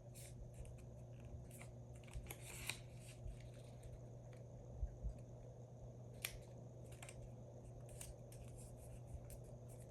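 Paper pages being folded and creased by hand: faint, scattered rustles and crisp crinkles of paper.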